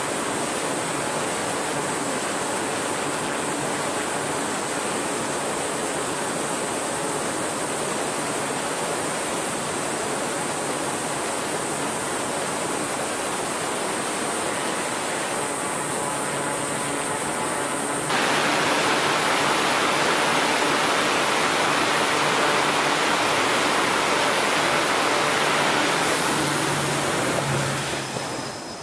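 Jet engines running on an aircraft carrier flight deck: a steady, even rushing noise that steps up louder about two-thirds of the way through and falls away near the end.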